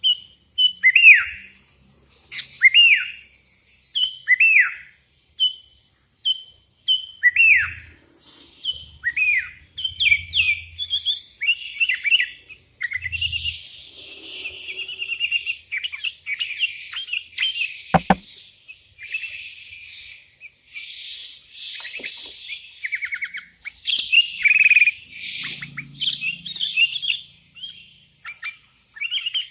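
Sooty-headed bulbul (kutilang) singing: a run of short notes, each sweeping downward, about one every second and a half, then from about twelve seconds in a denser, faster stream of chattering song phrases.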